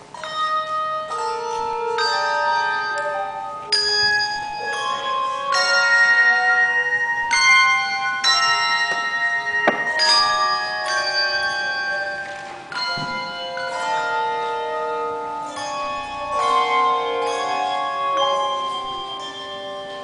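Handbell choir ringing chords. Each group of bells is struck together about once a second and rings on, overlapping the next.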